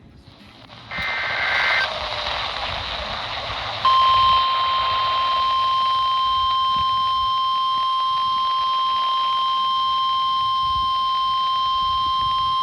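A RadioShack 12-254 weather radio receiving a distant NOAA Weather Radio station through static. About a second in comes a short burst of SAME digital header tones. From about four seconds in, the steady 1050 Hz warning alarm tone holds until near the end; it is the alert signal that comes before a broadcast flash flood warning.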